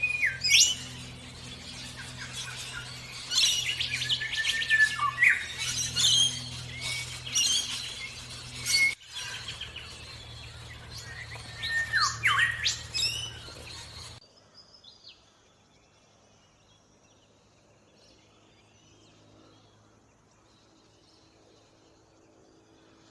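Orange-breasted bunting chirping in quick high calls and short sliding notes, over a steady low hum. About fourteen seconds in, the sound drops suddenly to a much quieter background with only faint, distant bird calls.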